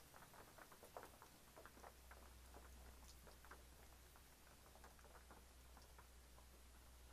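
Faint patter of light rain: scattered, irregular drop taps, several a second.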